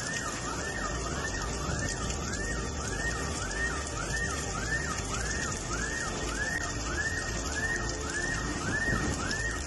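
An electronic alarm wailing in an even, repeating rise-and-fall cycle, a little under two cycles a second, over a constant hiss of rain.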